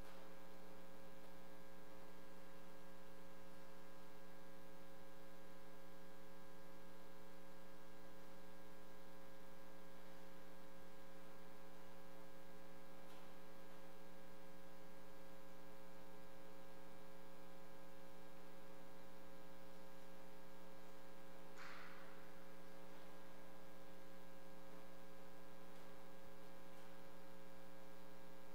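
Steady electrical mains hum, several fixed tones over a faint hiss, with one brief faint noise about twenty-two seconds in.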